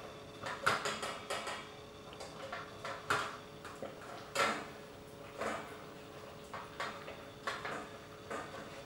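Boxer puppy eating from a stainless-steel bowl on a stand: irregular sharp clinks and rattles of the metal bowl as it eats, the loudest about three and four and a half seconds in.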